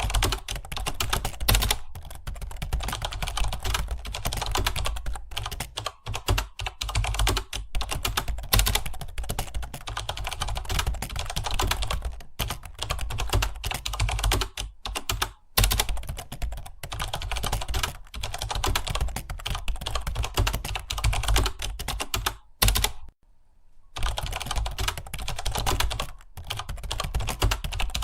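Fast, continuous typing on a computer keyboard, the keys clicking in a rapid stream with a few brief pauses, the longest about a second long near the end.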